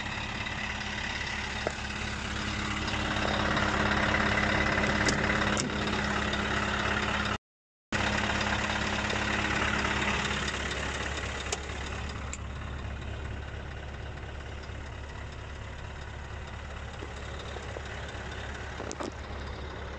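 Scania 164L 480's V8 diesel idling steadily. It is louder in the first half, then quieter and more muffled from about 12 seconds in, heard from inside the cab, with a few light clicks along the way.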